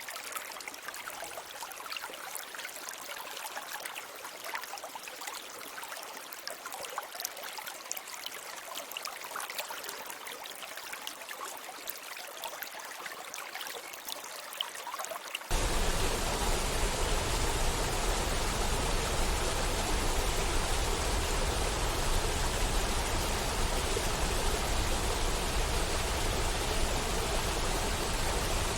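A small stream trickling and babbling, full of tiny splashes, cut off abruptly about halfway through by a louder, deeper, steady rush of water like a waterfall.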